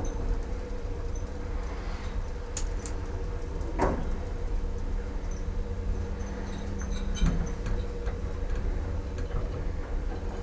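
Lift car in motion: a steady low rumble and hum from the ride, with a few clicks and knocks from the car about two and a half, four and seven seconds in.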